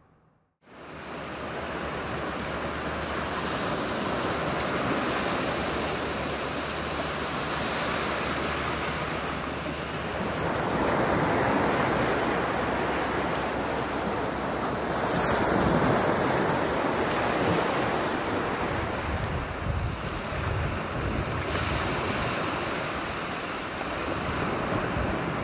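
Small waves breaking and washing up a sandy beach: a steady surf wash that swells and eases, starting after a moment of silence. Wind gusts buffet the microphone in the later part.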